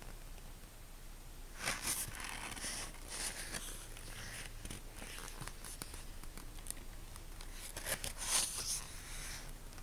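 Pages of a photo book being turned by hand, the paper rustling, loudest about two seconds in and again near the end.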